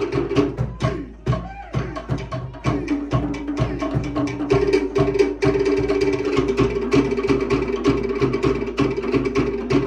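Polynesian log-drum ensemble playing a fast, driving rhythm, sharp wooden strokes on slit log drums over a deeper drum, accompanying the dance. The drumming breaks off briefly about a second in and then picks up again.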